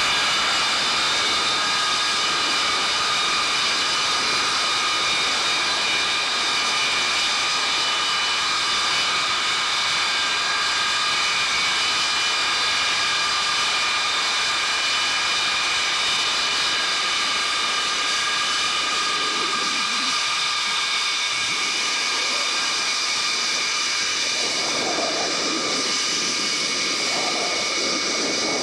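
The Pratt & Whitney J57 turbojet engines of a KC-135A Stratotanker running steadily during a ground engine run. It is a loud, even jet whine made of several steady high tones over a rushing roar.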